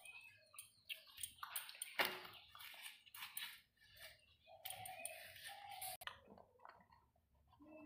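Faint, irregular scraping and cutting as ash gourd flesh is drawn against a boti's curved iron blade to cut away the seeds and spongy pith. A sharp knock comes about two seconds in.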